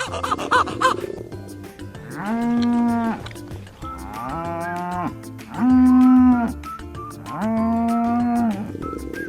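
Cow mooing four times, each moo about a second long, over light background music.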